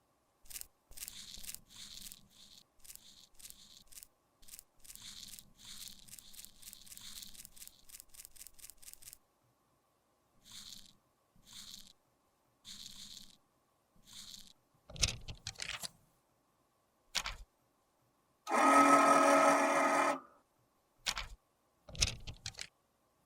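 Makeup being scraped and crushed with a tool in quick, crisp strokes, then slower single strokes and a few sharp clicks. Near the end comes a louder pitched sound that lasts about two seconds.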